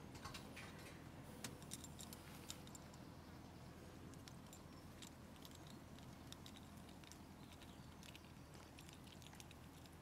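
Near silence: faint, irregular small clicks and ticks, thickest in the first few seconds, over a low steady hum.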